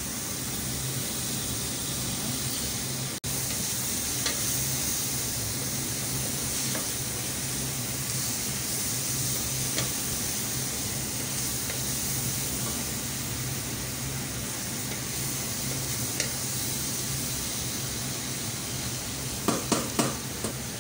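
Onions, garlic and tomato wedges sizzling in hot oil in a stainless steel pot while a wooden spoon stirs them, with occasional light clicks of the spoon against the pot. The sound breaks off for an instant about three seconds in, and a few sharper knocks come near the end.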